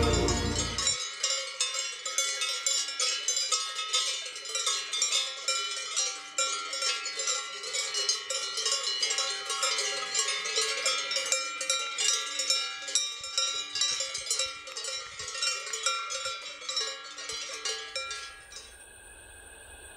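Cowbells clanking in an irregular, overlapping jangle of several pitched bells. The clanking stops near the end, and a faint low rumble takes over.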